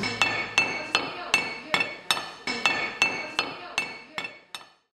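A metal rod tapping on metal parts at a steady pace of about three taps a second. Each tap is a bright clink with a short ring, and the taps grow fainter toward the end.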